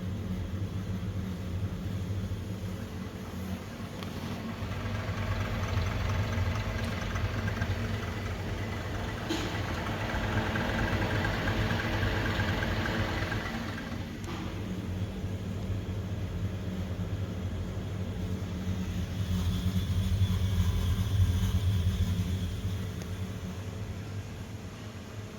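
Steady low hum of a refrigeration compressor running. A rushing noise over it swells and fades twice, in the first half and again near the end.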